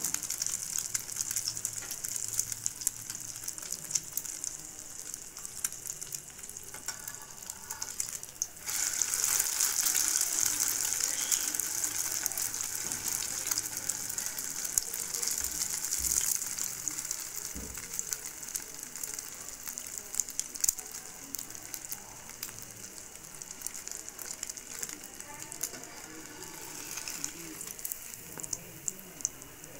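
French toast (egg-and-milk-soaked bread slice) sizzling as it fries in a pan, a steady crackle that gets louder about eight seconds in. The slice is still cooking through and browning.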